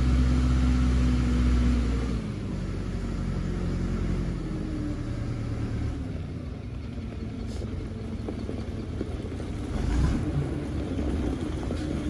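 A vehicle engine running steadily with a low rumble, louder for the first two seconds and swelling briefly about ten seconds in.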